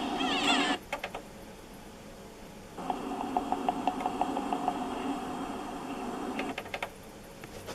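Aiwa CDS-A190 boombox: playback cuts off about a second in with a few clicks, then the CD mechanism runs with a steady motor hum and about five quick ticks a second for roughly three and a half seconds while it reads the disc, ending in another cluster of clicks.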